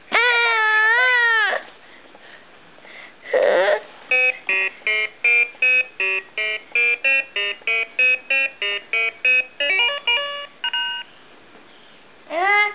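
A long, high-pitched wavering cry and a shorter one, then a singing toy plays an electronic tune of short beeping notes, about three a second, for some seven seconds.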